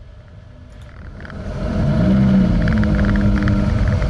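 2018 Jeep Renegade Trailhawk's engine pulling harder as the SUV accelerates along a rough dirt trail. It grows louder and rises in pitch about a second in, then holds steady, with rumble and repeated knocks from the bumpy ground.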